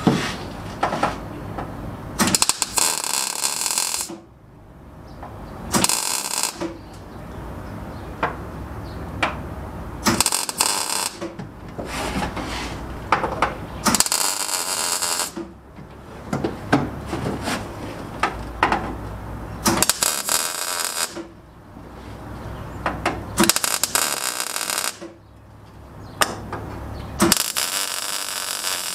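MIG welder stitching a sheet-steel rust-repair patch into a car floor pan: about seven short bursts of sizzling arc, each a second or two long, with a steady low hum between them.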